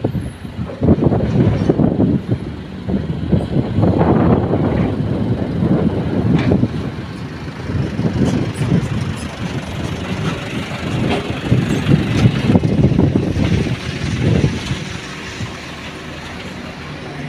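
Diesel engines of several small dump trucks running close by as they move in the pit, the engine noise rising and falling in loudness and easing off near the end.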